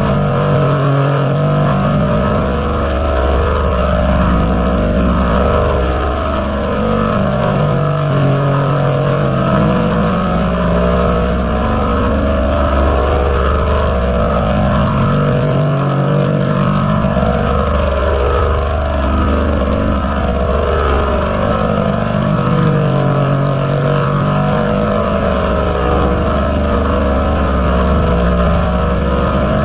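Heavily distorted, pitch-shifted 'G-Major 40' style audio effect: a loud, dense buzzing noise with low droning tones that come and go every few seconds.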